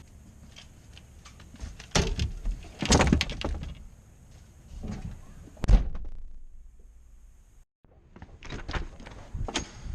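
A series of knocks and clattering bangs, like doors or gear being handled, with the loudest thud about six seconds in.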